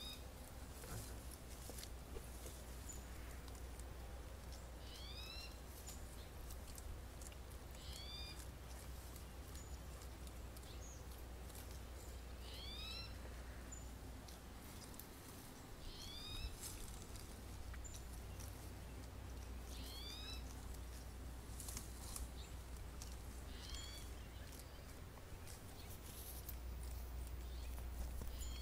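A short, rising, whistle-like animal call, repeated about every three to four seconds, over a faint low rumble and scattered light clicks.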